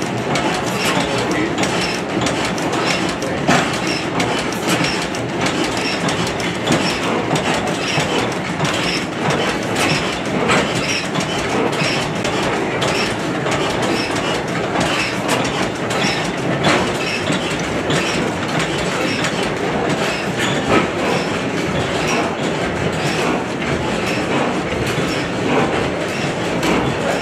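Several antique stationary gas engines running together, a steady mechanical clatter of valve gear, rods and flywheels with a regular ticking through it.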